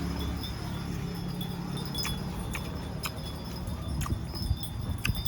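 A person eating and chewing close to the microphone, with sharp mouth clicks and smacks at irregular moments, about once a second. A faint, steady, high chiming rings in the background.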